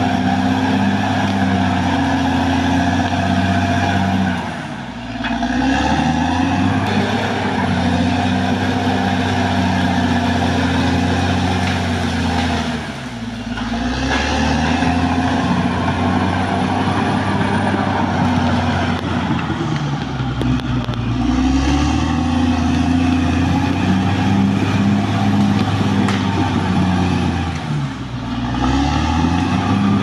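Caterpillar D6R XL bulldozer's diesel engine running hard at close range. Its pitch sags and then climbs back about four times, roughly every seven or eight seconds.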